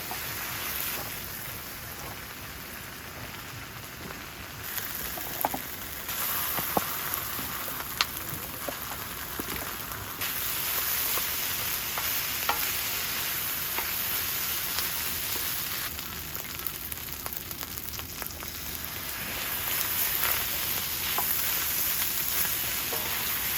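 Kimchi fried rice sizzling in a pan, its hiss stepping louder and quieter several times, with scattered clicks of a utensil stirring it.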